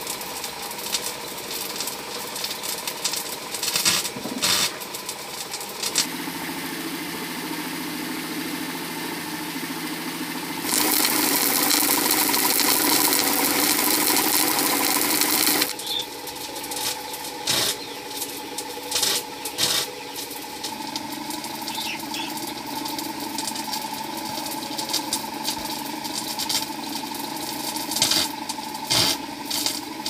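A small engine running steadily, its pitch shifting a few times, with a louder rushing stretch of about five seconds near the middle and scattered clicks and knocks.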